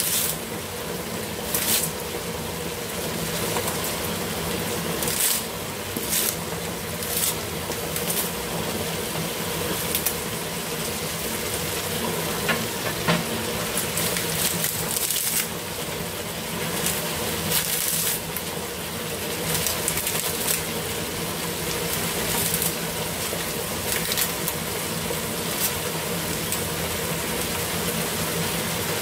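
Luffa and pork stew simmering in a frying pan, the sauce bubbling and sizzling steadily with many short crackles, over a faint steady hum.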